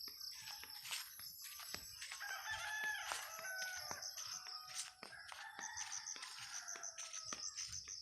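A rooster crowing, a long drawn-out call starting about two seconds in and fading near the end, over regular footsteps and a steady high-pitched insect drone.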